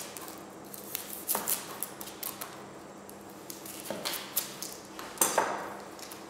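Knife and kitchen utensils knocking and clinking on a cutting board while an onion is prepared: a few scattered, irregular knocks, the loudest near the end, over a faint steady hum.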